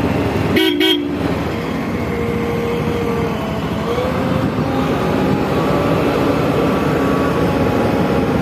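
Diesel engine of a JCB 3DX backhoe loader running steadily as it drives along the road, with two short horn toots about half a second in.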